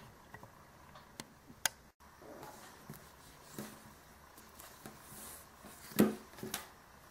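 Handling a crocheted purse of aluminum soda-can pop tabs: light clicks of the metal tabs and a crochet hook, with soft rustling, and a louder knock about six seconds in.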